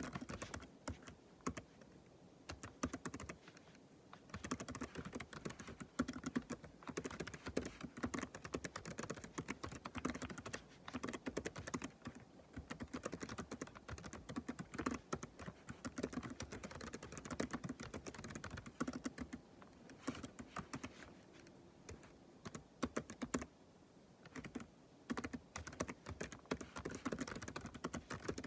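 Typing on a computer keyboard: fast runs of keystrokes broken by a few brief pauses.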